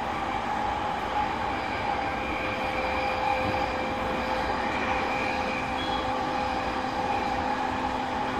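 JR East E217 series electric train running on the rails, heard from motor car MoHa E217-31: a steady rumble with an even whine from the motor car's drive at constant speed.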